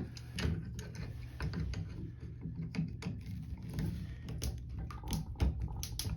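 Irregular small clicks and knocks as a Moen shower valve cartridge is worked back and forth to break it loose, without its removal tool.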